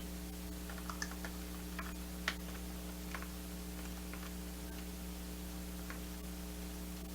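Small plastic clicks and taps of LEGO bricks being handled while trying to pry open a hatch on a brick-built tank model. There are a few scattered clicks over the first four seconds, the sharpest about two seconds in, over a steady low electrical hum.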